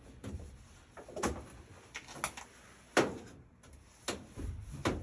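A series of irregular knocks and clunks, about six in all, the loudest about three seconds in, from parts of an indoor air-conditioner unit being handled and worked on.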